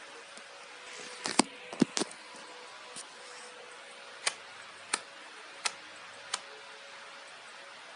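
Small electric fan running with a faint steady hum and hiss. Sharp clicks sound over it: a few close together early, then four evenly spaced ticks a little under a second apart.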